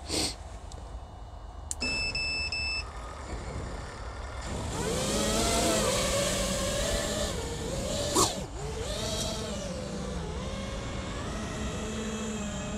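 FPV quadcopter motors and propellers whining, the pitch rising and falling with the throttle. A short electronic beep comes about two seconds in, and a sharp click at about eight seconds.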